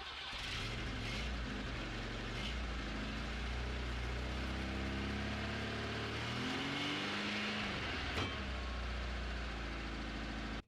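A car engine running steadily with a low hum, its pitch shifting slightly up and down around the middle.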